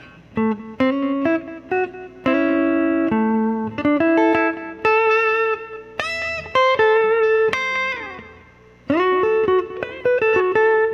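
Electric guitar playing a melodic lead line of picked single notes and double-stops through a Catalinbread Belle Epoch Deluxe tape-echo delay pedal, with a few bent notes about six to seven seconds in.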